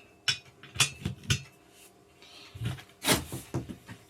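Gaming chair parts knocking and clicking together as the footrest is worked into place by hand: a few sharp knocks in the first second and a half, then a louder clatter about three seconds in.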